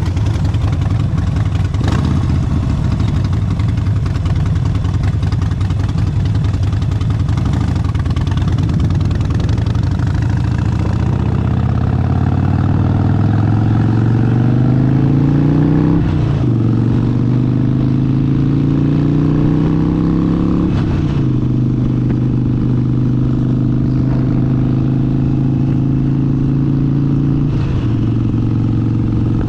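Harley-Davidson Sportster 72's air-cooled 1200 cc V-twin under way. It runs steadily at low revs, then revs rise as the bike accelerates, with two upshifts about a third and two-thirds of the way in, each a sudden drop in pitch, before settling into a steady cruise.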